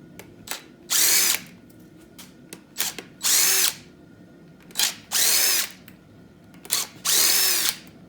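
Impact gun spinning out loosened valve cover bolts on a 5.3 LS V8, one bolt at a time: four short bursts, each under a second, about two seconds apart, each with a rising whine and a small click just before it as the socket goes onto the next bolt.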